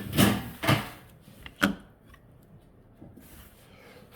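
Three sharp knocks and clicks from a car door lock and latch assembly being handled and worked by hand, all in the first two seconds.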